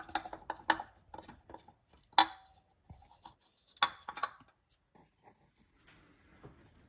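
Metal clinks and scrapes as a Td5 engine's water pump is worked loose and lifted off the block. Three sharper clinks, about a second and a half apart, ring briefly.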